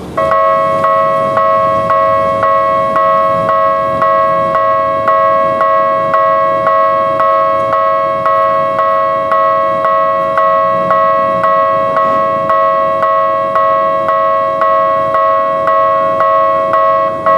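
Japanese railway level-crossing warning bell starting up and clanging steadily, about three strikes every two seconds, the "kan-kan" alarm that signals an approaching train.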